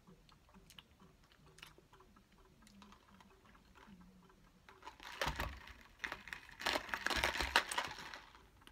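Faint sipping through a plastic straw with small clicks. About five seconds in come a few seconds of crinkling and rattling from the plastic iced-coffee cup, lid and straw being handled.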